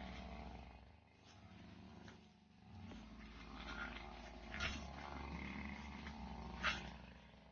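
Two-stroke backpack brush cutter running at a distance, its engine sound dropping away twice in the first half and then picking back up as it cuts. Two brief sharp sounds come in the second half.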